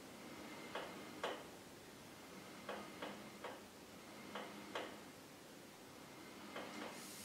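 Faint, irregular clicks, often in pairs about half a second apart, from a Pilates reformer's sprung carriage as it is slowly pulled forward and let back along its track.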